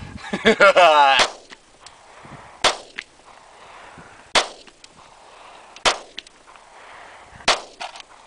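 Handgun fired four times in slow, even succession, about a second and a half between sharp shots. A person's voice is heard in the first second.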